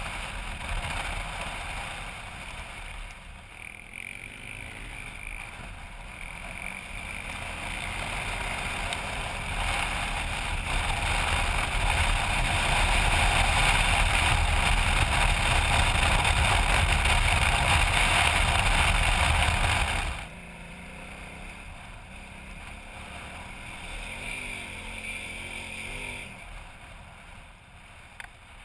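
KTM 990 Adventure's V-twin engine running under way with heavy wind rush on the camera, its pitch rising and falling with the throttle. It builds to its loudest from about twelve to twenty seconds in, then drops off suddenly.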